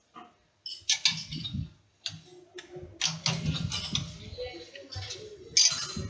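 Irregular metallic clicks and clinks from a lathe's four-jaw chuck being turned by hand and its jaws set with a chuck key.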